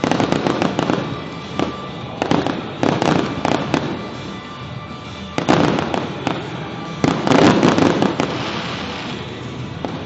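Fireworks bursting and crackling in rapid volleys, four dense clusters of reports, over a steady background of music.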